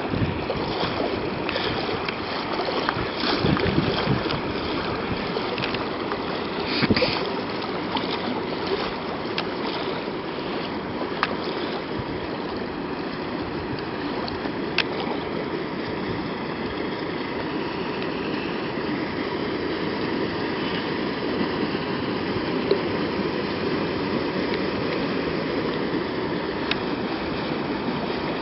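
Deep floodwater rushing and swishing steadily as a vehicle wades slowly through it, with a few louder splashes in the first several seconds.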